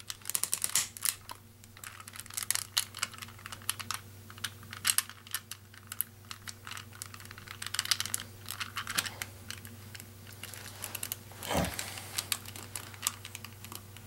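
Plastic Rubik's Cube pieces clicking and rattling as they are pushed and rocked into place by hand, in irregular clusters of small sharp clicks.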